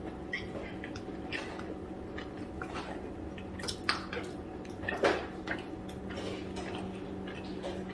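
Close-up eating sounds: chewing, with scattered small crackles and clicks from picking at rice and crisp fried dried fish by hand on a plate, the loudest near the middle, over a steady low hum.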